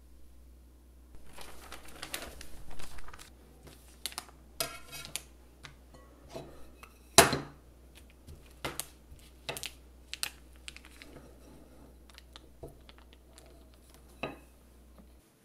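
Plastic wrap rustling and crinkling as cookie dough is rolled out thin under it, with scattered taps and knocks and one sharp knock about seven seconds in. A low steady hum underneath stops just before the end.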